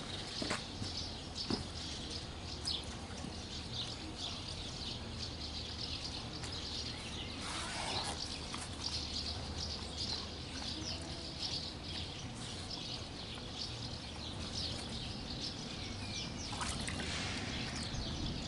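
Many small birds chirping throughout, with water sloshing around a carp sling being dipped into the river, loudest about eight seconds in and again near the end.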